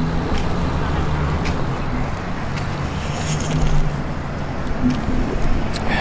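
Steady street traffic noise: a low engine hum from nearby vehicles.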